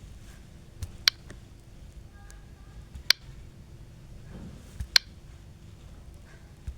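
A few sharp clicks, three strong ones about two seconds apart with fainter ones beside them, from a phone being tapped and handled in a quiet room.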